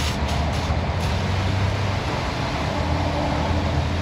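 A steady low mechanical hum, with a few light clicks in the first second.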